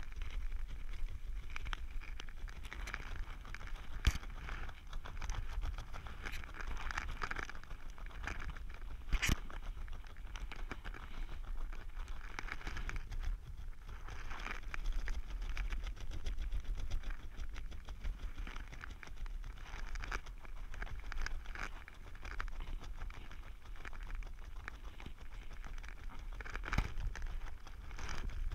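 Wind buffeting the microphone during a descent under an open parachute canopy, a steady low rumble with irregular rustling of the wingsuit and canopy fabric. Two sharp knocks stand out, about 4 and 9 seconds in.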